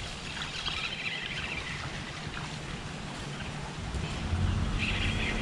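Spinning reel being cranked to bring in a hooked fish, a faint whir, with wind buffeting the microphone and growing stronger about four seconds in.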